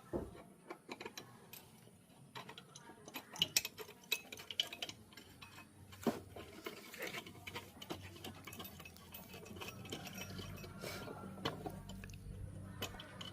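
Irregular metallic clicks and clinks of hand tools and small engine parts being handled, with a low steady hum coming in about two thirds of the way through.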